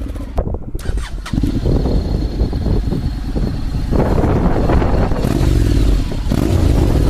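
Honda X-ADV's 745 cc parallel-twin engine running through an aftermarket exhaust. After a short break with a few clicks about half a second in, it picks up again and gets louder about four seconds in.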